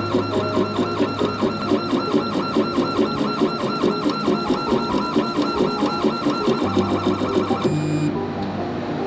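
Desktop laser engraver's head-drive stepper motors whining in a fast back-and-forth rhythm, several strokes a second, as the head rasters across the pen barrel engraving the wood. The whine stops about three-quarters of the way in, when the engraving is done.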